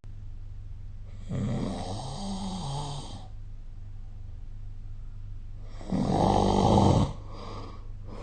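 A sleeping person snoring: two snores a few seconds apart over a steady low hum. The first lasts about two seconds and wavers in pitch; the second, about a second long, is louder and rougher.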